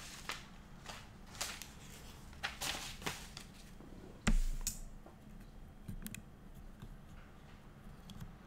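Desk handling noises: scattered light clicks and rustles, with one louder thump about four seconds in.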